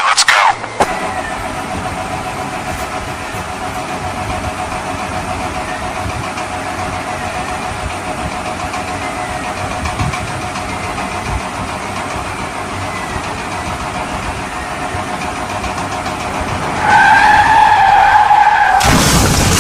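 A car engine sound running steadily, then a louder pitched tone for about two seconds near the end.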